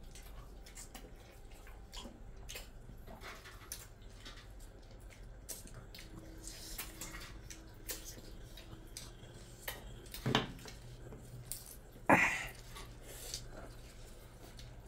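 Close-up eating sounds of people eating by hand: wet chewing and lip-smacking with many small clicks, and two louder wet bites about ten and twelve seconds in.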